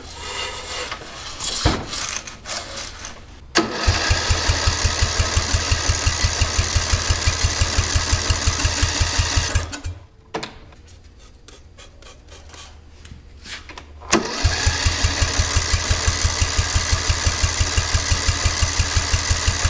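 A lawn tractor's small engine being cranked over by its starter in two runs of about six seconds each, with an even, rapid chugging that never rises into firing: it turns over but does not catch. The engine has just been broken free after seizing on a rusty cylinder wall. A metallic clank comes about two seconds in.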